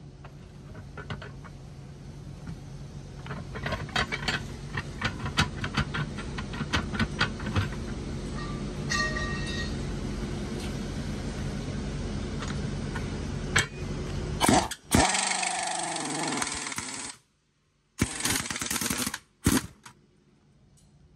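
Metal clicks and clanks from a hand-built screw press working a truck tyre's bead off its steel rim, over a steady low machine hum. About fifteen seconds in comes a loud burst of noise with a falling squeal, then a sudden cut and a few short loud bursts.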